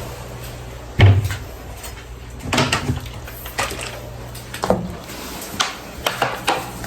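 Knocks and clatters of household things being handled, perhaps a cupboard door: one heavy thump about a second in, then several lighter knocks spread over the following seconds, over a steady low hum.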